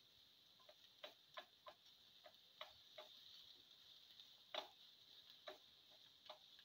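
Spatula tapping and scraping against a pan while stirring sliced onions and cumin seeds: a string of irregular light clicks, the loudest about four and a half seconds in, over a faint steady hiss.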